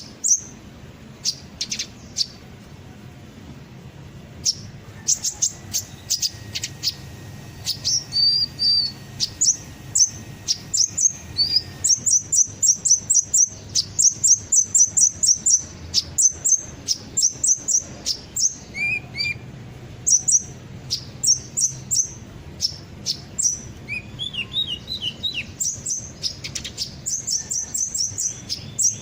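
Kolibri ninja sunbird song: sharp, high chirps, sparse at first, then from about twelve seconds in fast runs of several notes a second, with a few lower twittering trills.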